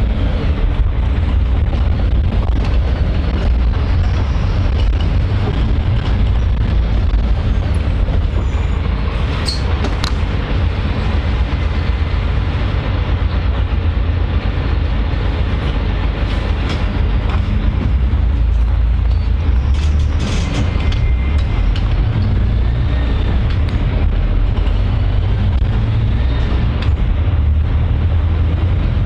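Moving train carriage running steadily: a continuous low rumble and rattle, with a few sharp clicks about a third and two-thirds of the way through.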